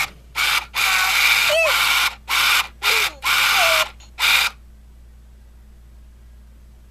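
Original 1999 Tiger Electronics Furby talking in its electronic toy voice: six short, harsh, squawky bursts with gliding pitch, stopping about four and a half seconds in.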